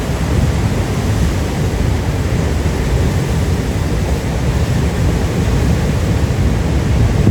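Ocean waves washing against the shore, a steady rush with a deep rumble.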